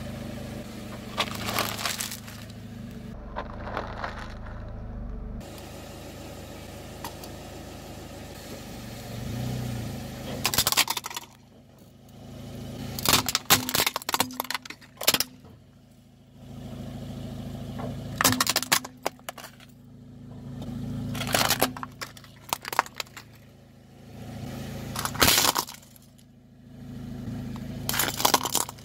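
A car tyre rolling over and crushing brittle objects: repeated groups of sharp cracking and crunching, several seconds apart, over the car's steady engine hum.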